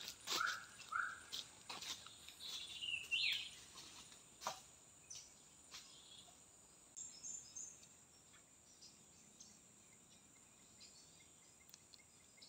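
Forest ambience: a steady high insect drone throughout. A bird gives short rising chirps about half a second apart in the first second, then a falling call about three seconds in. Scattered crackles of bare feet stepping on dry leaf litter.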